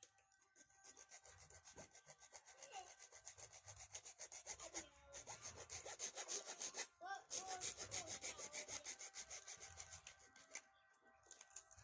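Hand saw cutting with quick, even back-and-forth strokes, growing louder midway with a brief pause, then stopping shortly before the end.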